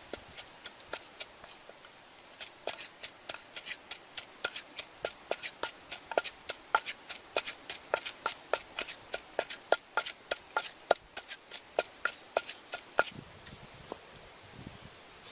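Wooden pestle pounding chili paste in a clay mortar: a run of sharp knocks, slower at first, then about three a second, stopping about 13 seconds in.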